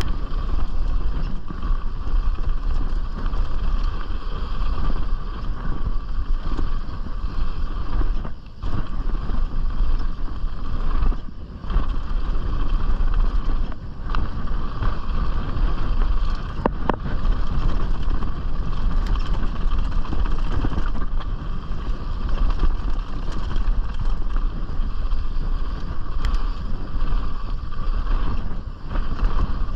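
Mountain bike (Canyon Strive 6.0) ridden fast down a dirt bike-park trail: a steady rumble of tyres and rattling bike with wind on a chest-mounted action camera, dipping briefly twice and with a sharp knock about two-thirds of the way through.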